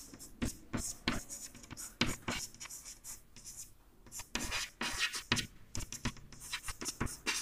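Chalk writing on a chalkboard: an irregular run of short scratches and taps as the letters are formed, sparser for a moment in the middle and quicker afterwards.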